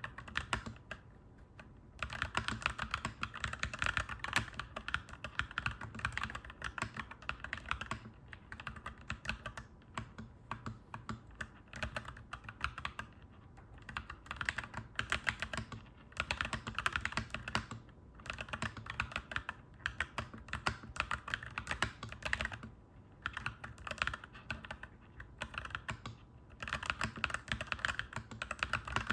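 Clacky mechanical keyboard being typed on fast, in runs of several seconds with short pauses between them.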